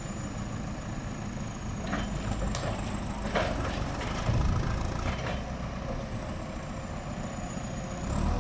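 A heavy diesel vehicle engine running steadily, with several knocks and clanks from about two to five seconds in, the loudest a little past four seconds.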